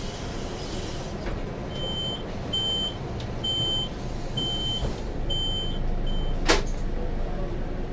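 Scania K230UB bus's door-closing warning beeper sounding six evenly spaced high beeps, about one a second. A sharp clunk follows near the end as the door shuts, with the bus's engine idling underneath.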